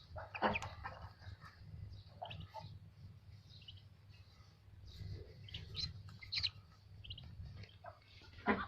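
Hatching ducklings peeping: short, faint high chirps scattered irregularly, with a louder one near the end.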